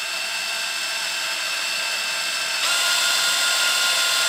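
Cordless drill spinning the drive of a rebuilt late-1960s/early-1970s VW Beetle speedometer on a bench test run: a steady whirring whine that steps up louder and faster about two-thirds of the way through as the needle climbs.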